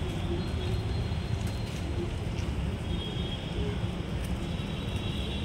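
Steady low rumbling background noise, with no distinct event.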